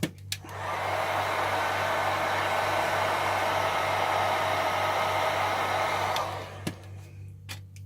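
Heat gun blowing hot air: a steady rushing hiss with a faint motor whine that starts about a second in and cuts off about six seconds in. It is heating a tightly stuck part to soften its adhesive.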